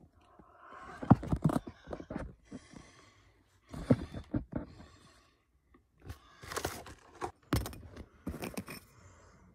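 Handling noise: irregular scrapes, knocks and rustles of a cardboard-and-plastic box being moved about. They come in clusters about a second in, around four seconds, and again from about six to nine seconds.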